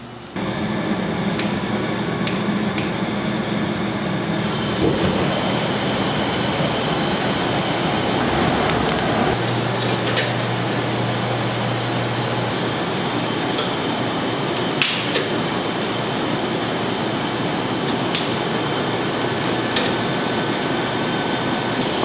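Kitchen machinery running steadily, with scattered sharp metallic clicks and knocks and a low hum that comes in for a few seconds in the middle.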